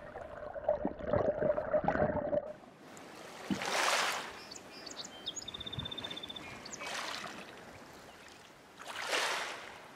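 Muffled underwater noise with a low hum and small clicks, cutting off after about two and a half seconds. Then water washes in soft swells that rise and fade roughly every three seconds. A brief, rapid high bird trill comes about halfway through.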